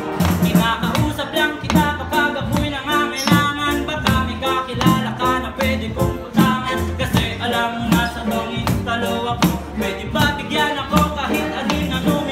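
A man singing through a microphone over music with a steady beat.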